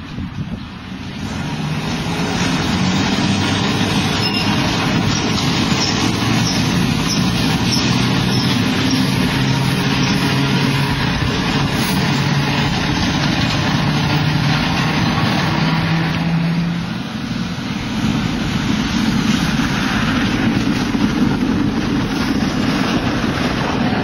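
A city tram running past on the street: a steady low motor hum over road and rail noise, with a run of light ticks a few seconds in. The noise dips briefly about two thirds of the way through, then rises again.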